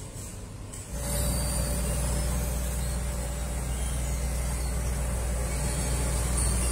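Vögele asphalt paver's diesel engine running steadily at close range: a loud, low, even drone with a high hiss over it. It comes in suddenly about a second in and stops abruptly at the end.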